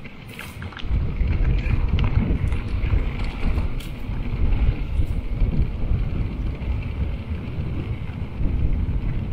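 Wind rumbling on the microphone of a camera riding along on a mountain bike, jumping up sharply about a second in and staying loud, with a few light clicks and rattles from the bike.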